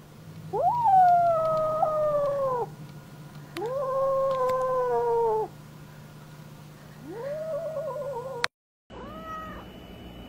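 Domestic cat yowling: three long drawn-out calls of about two seconds each, each swooping up at the start and then holding, followed by a short fainter call near the end after an abrupt break. These are the drawn-out mating calls of a cat in love.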